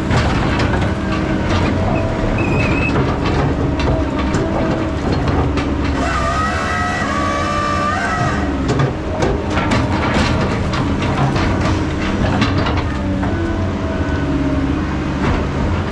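Heavy logging machinery running steadily under load, with repeated metallic clanks and knocks. A high squealing whine of several tones rises for about two seconds near the middle.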